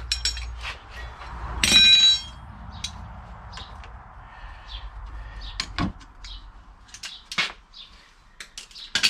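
Steel hand tools clinking and knocking against the suspension's metal mounting plate, with one loud ringing metal clank about two seconds in and scattered sharp knocks after it.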